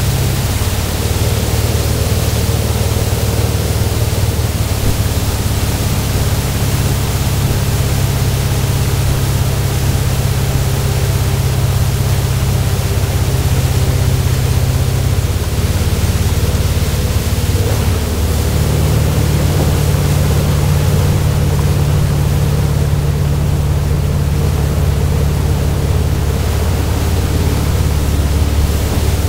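A tow boat's engine drones steadily under load, its low hum shifting slightly in pitch a few times. It sits under a constant loud rush of wind and churning wake water.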